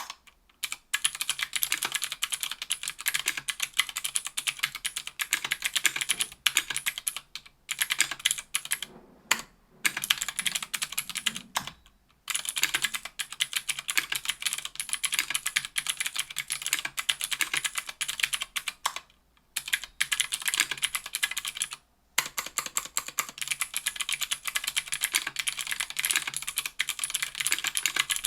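Continuous typing on stock Gateron Blue Ink 70 g clicky switches in an aluminum-plated KBDfans Tofu 60% aluminum keyboard with GMK keycaps. It is a dense stream of sharp clicky keystrokes, broken by a few brief pauses.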